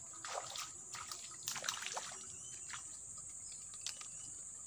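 Water splashing and dripping as a hooked fish is pulled out of the stream on a pole: several short splashes in the first two seconds, then a few faint drips. A steady high-pitched insect buzz runs underneath.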